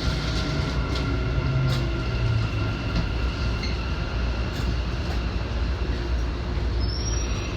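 Keikyu electric train's steady rumble, heard from inside the front car, with a few faint steady whine tones above it.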